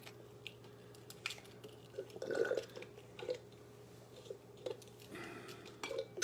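Faint, scattered light clicks and small wet squishes of eggs being separated by hand, yolk from white, over a steady low hum.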